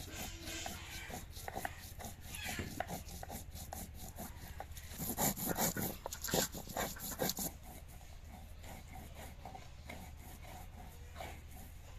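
Dried red chillies being crushed on a sil-batta, the flat grinding stone rubbed with a rocking stone pestle: a quick run of stone-on-stone scraping and knocking strokes, loudest for a couple of seconds around the middle, then softer.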